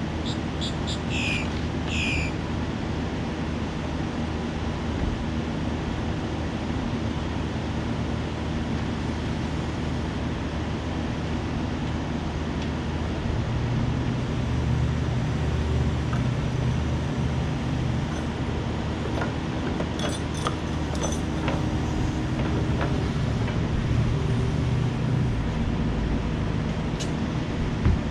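Diesel engine of a compact construction machine running steadily, working harder for about ten seconds in the middle. Two short high squeaks come near the start, and a few metallic clinks come later.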